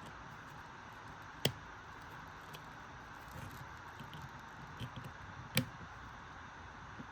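Small handling clicks as a wire's push-on terminal is fitted to a Speakon connector: two sharp clicks about four seconds apart among lighter ticks, over a faint steady hiss.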